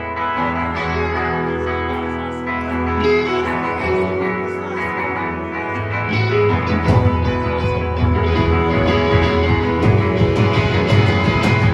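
Live rock band playing an instrumental intro: electric guitars ring out sustained chords, then about six seconds in the drums and bass come in with a steady beat.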